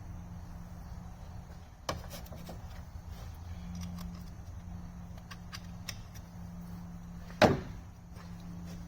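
Clicks and light clatter of shift-linkage parts and tools being handled, with a sharp click about two seconds in and one loud clunk near the end, over a steady low hum.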